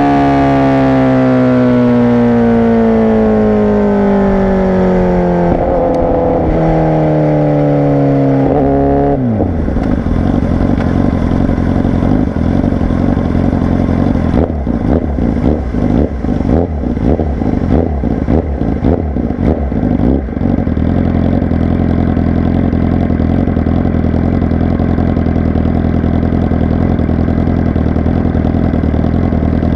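Honda CBR1000RR Fireblade's inline-four through a Racefit exhaust, revs falling steadily as it slows, with a short rise about five seconds in as it changes down. From about nine seconds it drops to a low burble with irregular crackles for about ten seconds, then runs steadily at low revs.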